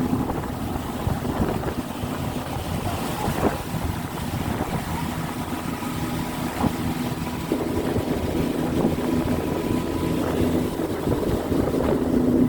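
Motorboat engine running at a steady hum under way, with wind buffeting the microphone.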